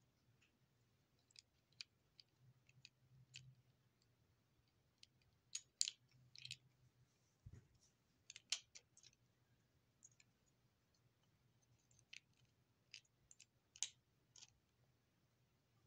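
Light, scattered clicks and ticks of small plastic Lego pieces being handled, irregular and unevenly spaced, with a soft low bump about seven and a half seconds in, over a faint steady hum.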